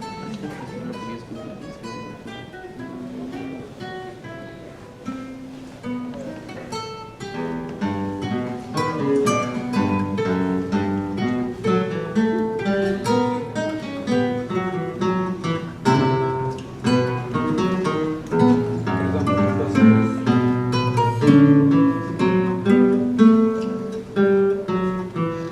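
Small ensemble of acoustic guitars playing a piece live, plucked notes in several parts. It starts sparse and soft, then grows fuller and louder from about seven seconds in as more parts come in.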